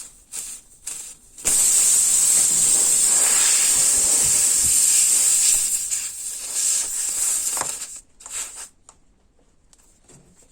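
Air hissing out of a punctured tubeless tire as the repair tool is pulled out of the hole. A few handling clicks come first, then the hiss starts suddenly, stays loud and steady for about four seconds, and fades out about eight seconds in.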